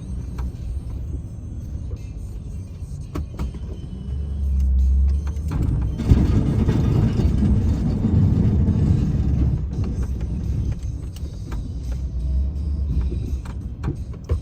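Snowplow truck's engine running with a steady low rumble and scattered knocks, growing louder and rougher for a few seconds in the middle.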